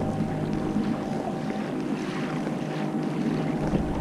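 Steady hum of the outboard motor on a passing pontoon boat, holding one pitch, over wind and water noise on the microphone.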